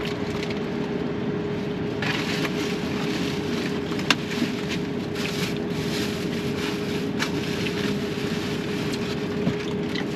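Steady hum inside a vehicle cabin with one constant low tone, over which takeout food packaging crinkles and clicks as it is handled, with a sharp click about four seconds in.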